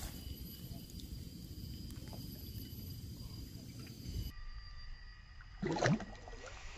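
Water swirling around a hand releasing a small peacock bass in shallow water, over a low rumble, with one short splash just before six seconds in.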